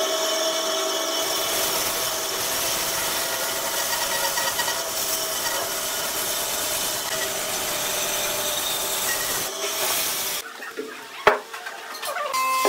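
Band saw running and cutting through a log, a steady rasping buzz of the blade in the wood. The sound stops abruptly about ten and a half seconds in, and a single sharp knock follows about a second later.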